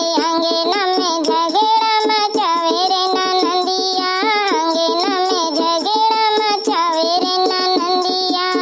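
A high, childlike woman's voice singing a village folk song, held notes sliding between pitches, over a steady drone and a dholak drum beating.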